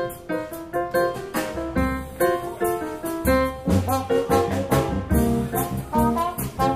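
A live band playing an upbeat number with a steady beat; a bass line comes in about two seconds in.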